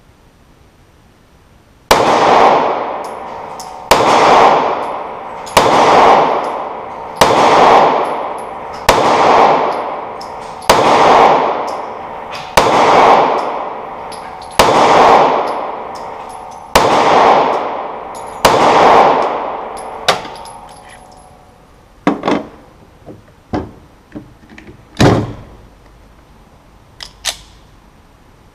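Sig Sauer P365 9mm pistol firing ten shots, spaced roughly two seconds apart, each with a long ringing decay. Several lighter clicks and knocks follow near the end.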